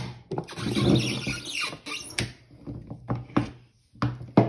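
Kart tire rubber squeaking and rubbing against the rim as the bead is forced on with a scissor-type tire tool, followed by several short metal clicks and knocks from the tool.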